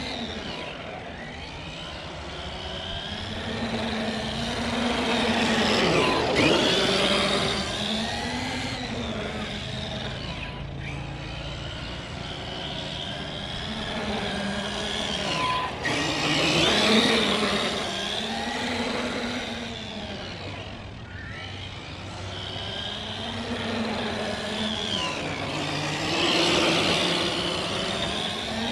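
Electric drivetrain of a Traxxas X-Maxx 8S RC monster truck: the brushless motor and gears whine, rising and falling in pitch as the truck speeds up and slows, with tyre noise on concrete. It gets louder three times as the truck passes close.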